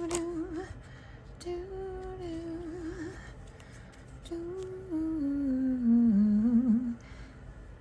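A woman humming a slow, wavering tune in three short phrases, the last one louder and stepping down in pitch, with a few faint clicks between the phrases.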